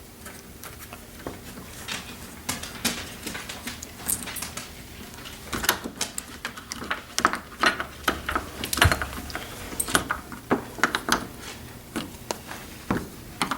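Irregular metallic clicks and scrapes of a hand tool working at a door's deadbolt strike plate and its screws, growing busier about halfway through.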